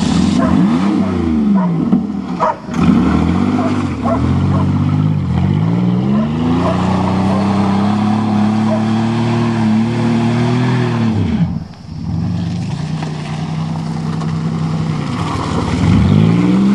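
A 1990 Buick sedan's engine revving hard under load, its pitch climbing and falling again and again. It is held high for several seconds, drops off sharply about two-thirds of the way in, then picks up and climbs again near the end.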